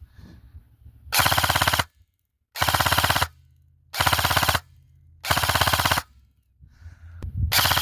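Matrix Warlord DMR airsoft electric gun (AEG), fitted with an M130 spring, firing on full auto: four short bursts of about two-thirds of a second each, then a fifth near the end, each a fast, even rattle of shots.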